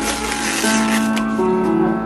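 Background music: held instrumental notes that change every half second or so.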